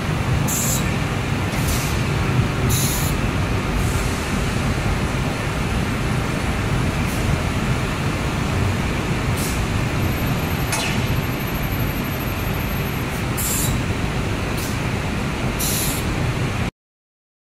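Steady low machinery noise of a glass cutting line, with several short high hisses scattered through it. It cuts off suddenly about a second before the end.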